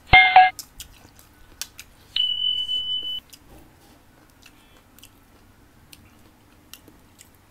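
Electronic notification sound effects: a click with a short chime of several tones, then about two seconds in a single high steady beep lasting about a second. Faint clinks of a spoon against a bowl between them.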